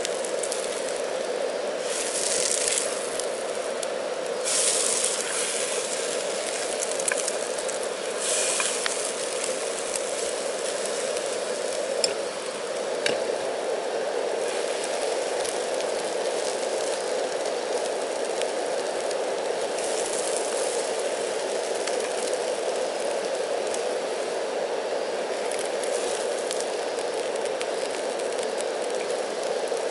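Portable butane canister stove burning with a steady hiss, and French toast sizzling in butter in a frying pan. Louder sizzling flares up a few times early on as the slices are turned and pressed with chopsticks.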